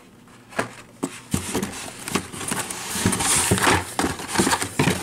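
Hot Wheels blister-carded toy cars being grabbed and pulled out of a cardboard shipping case: plastic blisters and card backs clicking, clattering and rustling against each other and the box, busier from about a second in.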